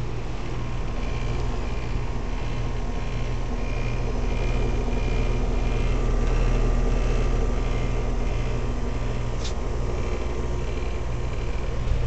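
Lennox XP15-024 heat pump outdoor unit running: a steady low hum of the compressor and condenser fan, with one sharp click about nine and a half seconds in.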